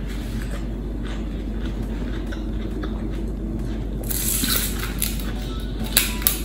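Close-up chewing and crunching of crisp raw vegetables and fruit, quiet at first, then louder crunchy bites from about four seconds in, with two sharp crunches near the end. A steady low hum runs underneath.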